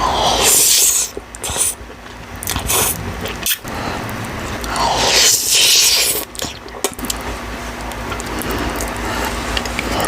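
Close-miked eating of ramen and pork: two long, wet slurps, about half a second in and again around five seconds, with chewing and lip smacks between them.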